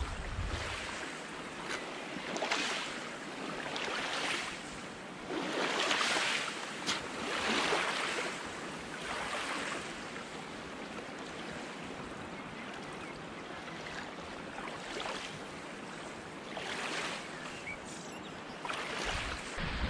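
Small wind-driven waves washing onto the loch's shore, one swell of water noise every second or two, stronger in the first half and easing later.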